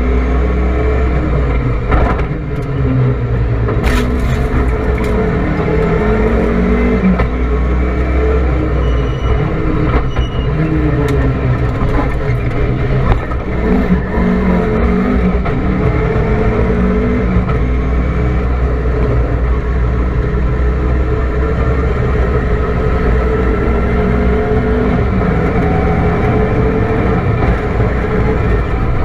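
Rally car engine heard from inside the cockpit, driven hard, its pitch climbing and dropping again and again as it revs up and shifts through the gears, over steady road and tyre noise.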